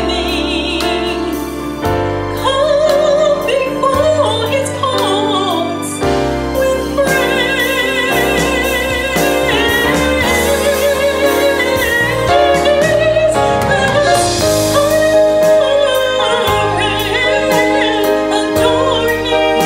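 A woman singing a gospel solo over instrumental accompaniment with sustained chords and bass notes, her held notes wavering with vibrato.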